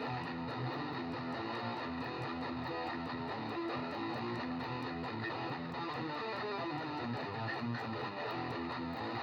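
Electric guitar played through a distortion and boost effect, a continuous run of notes and chords at an even level.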